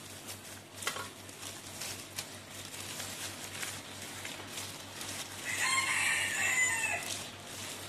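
A rooster crows once, a long call of nearly two seconds starting a little past halfway. Before it come faint clicks and rustles of gloved hands pulling apart boiled chicken in a steel pot.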